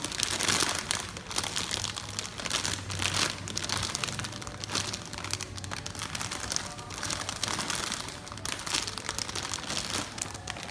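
Clear plastic packaging bag crinkling and rustling in irregular bursts as a large squishy toy inside it is handled.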